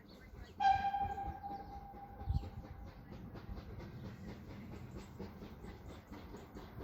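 Steam locomotive whistle, GWR 4575-class 2-6-2 prairie tank 5541, blown once: a single note that starts sharply and fades over about two seconds. A low thump follows, then the engine's exhaust beats set in at about three a second as it works along.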